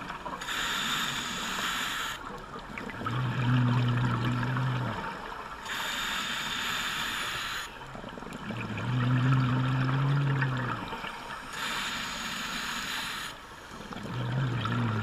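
Scuba regulator breathing underwater, three full breaths: a hissing inhale through the demand valve alternates with a low burbling rumble of exhaled bubbles.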